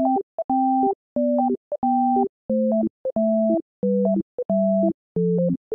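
Background music: a simple synthesizer tune of short, clean chord notes in a bouncy rhythm, about two a second, each cut off sharply into silence.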